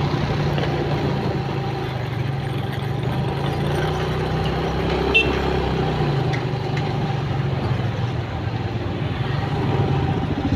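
Motorcycle engine running steadily at low speed in slow city traffic, with the engines of nearby vans around it. A brief sharp click sounds about five seconds in.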